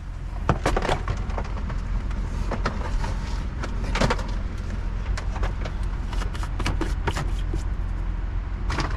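A car's plastic bumper cover being worked out through the cabin, knocking and scraping against the interior in scattered short knocks, the heaviest about half a second in, around four seconds and just before the end, over a steady low rumble.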